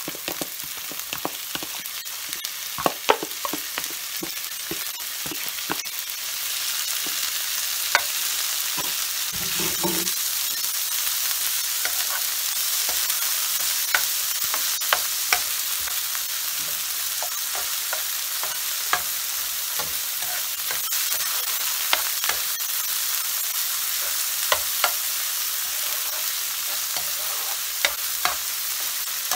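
Minced meat and sliced onion sizzling in a nonstick frying pan, the sizzle growing louder about six seconds in as the pan heats the fresh meat. A spatula stirs and turns the mince, knocking and scraping on the pan in frequent sharp clicks.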